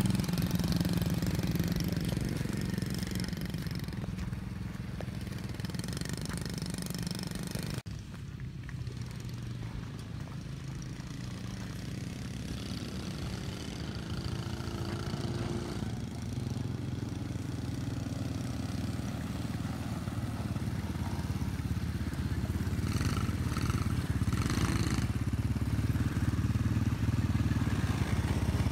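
Small 50cc dirt bike engine running as it is ridden around. About eight seconds in the sound changes abruptly to a kid-sized quad and a small dirt bike running together, growing louder near the end.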